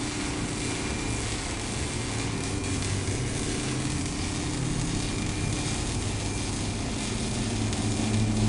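Arc welding on a new exhaust pipe under a lifted pickup: a steady crackling arc over a steady low hum, growing a little louder near the end.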